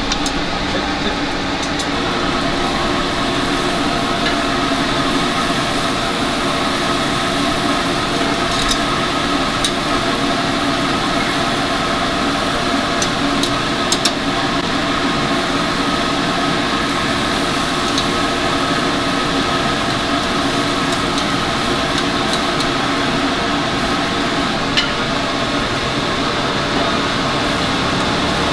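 Steady mechanical hum, with a few light clicks and taps now and then.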